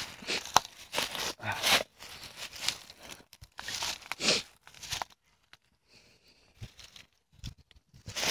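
Dry leaves and twigs rustling and crunching in repeated bursts as they are handled and laid on a small burning tinder bundle. It goes quieter about five seconds in, leaving a few faint clicks.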